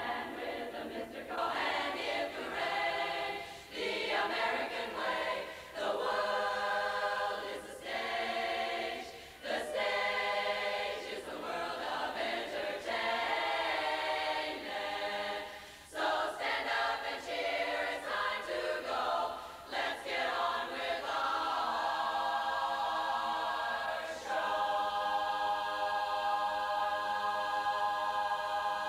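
A women's barbershop chorus singing a cappella in close harmony, phrase by phrase, then holding one long sustained chord through the last few seconds.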